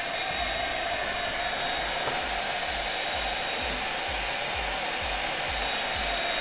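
AVC 12-volt, 2.4-amp centrifugal blower fan running at full speed: a steady rush of air with a thin whine, and a low pulsing about twice a second.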